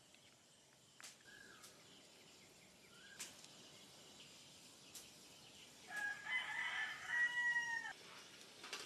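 A rooster crowing once, a single call of about two seconds that comes past the middle and ends abruptly. Before it, a few faint sharp clicks.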